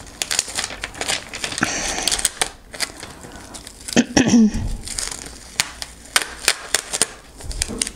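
Black self-adhesive bookbinding tape being pressed down and its paper backing peeled off and crinkled: a run of small crackles, clicks and paper rustles.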